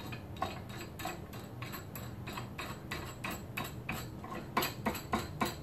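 A nut being spun by hand down a threaded bolt of a metal antenna pole clamp, making a regular clicking about four times a second that grows louder near the end.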